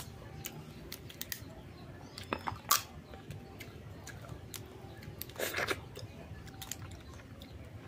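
Cooked crab shell being cracked and picked apart by hand, with close-up chewing. A few sharp cracks and crackles scattered through, and a quick run of them about five and a half seconds in.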